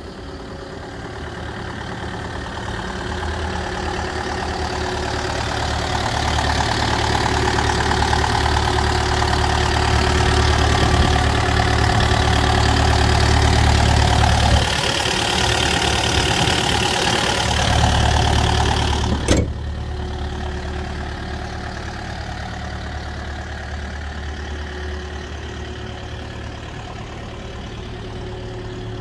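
Kubota KX080-4 excavator's four-cylinder diesel engine idling steadily, louder while heard close up at the open engine compartment. A single sharp knock comes about two-thirds of the way through, after which the engine sounds quieter.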